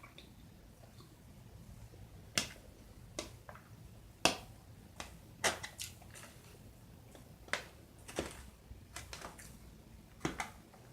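A person eating close to the microphone: irregular wet mouth clicks and smacks while chewing, a dozen or so short sharp sounds spread over several seconds.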